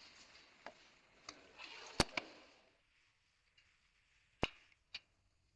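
Sharp clicks and knocks from hands and tools working on a car door lock, with faint rustling handling noise in the first half. The loudest click comes about two seconds in, and two more come near the end.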